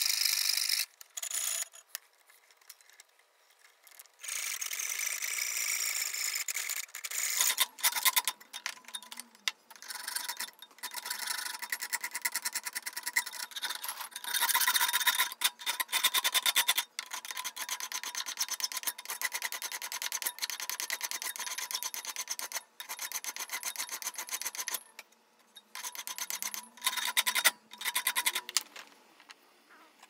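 Hand-sawing and filing a metal bracket: a small thin-bladed frame saw rasps through the metal, then a hand file scrapes along the cut edge in rapid repeated strokes, with a few short pauses.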